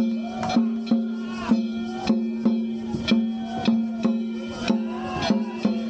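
Danjiri hayashi, the festival cart's traditional percussion: drum beats and struck hand gongs ringing in a steady rhythm of about two strikes a second, over a steady held tone.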